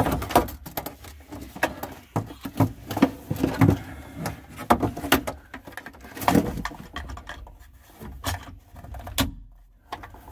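Irregular clicks, knocks and rustles of hands hooking the battery control box of a Moen electronic kitchen faucet onto its gray mounting piece, with a short quiet spell near the end.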